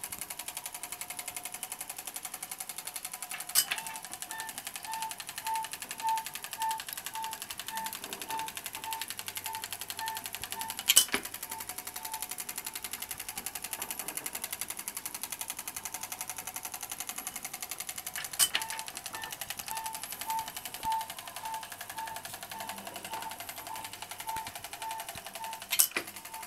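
Seeburg Stereo Showcase jukebox mechanism running on test: a motor with a fast, even ticking, a loud clack about every seven seconds (four times), and a steady pulsing beat of two or three a second between the clacks as the mechanism cycles.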